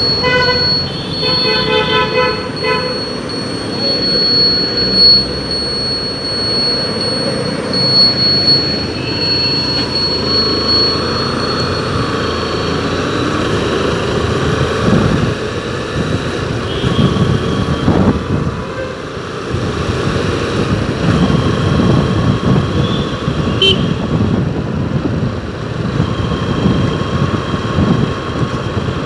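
Road traffic noise with a vehicle horn tooting several short times in the first few seconds.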